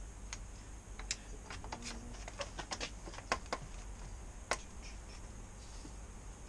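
Irregular light clicks and taps from hand tools being worked on the motorcycle's top yoke bolts, with a sharper knock about four and a half seconds in.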